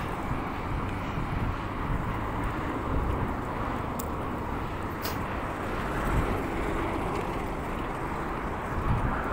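Steady rumble of vehicle noise, with a couple of faint clicks about four and five seconds in.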